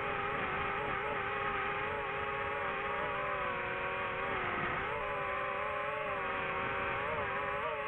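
DJI FPV drone's motors and propellers whining, the pitch wavering up and down with the throttle and dipping briefly about five seconds in.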